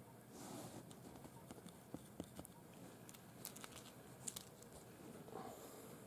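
Near silence: quiet room tone with a few faint, small clicks and two brief soft rustles.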